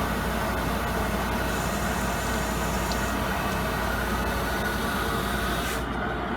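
Steady machine hum with an even hiss over it; the hiss drops away abruptly near the end while the low hum carries on.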